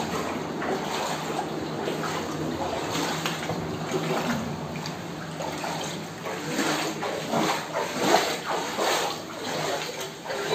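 Shallow floodwater sloshing and splashing over a floor as it is stirred up, with uneven swishes and splashes coming thicker in the second half.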